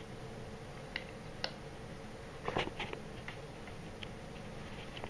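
A few short, sharp clicks and taps, a small cluster of them about two and a half seconds in, over a steady low hum.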